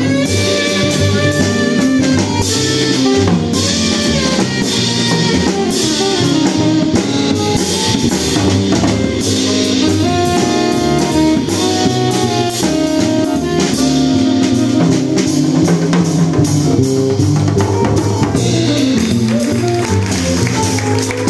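A live hard-bop jazz quintet playing: a tenor saxophone line over double bass, drum kit with cymbals, and guitar.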